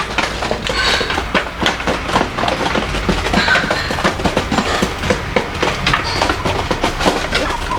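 A flock of chickens: a dense, irregular clatter of small taps and clicks, with a few short clucks and peeps mixed in.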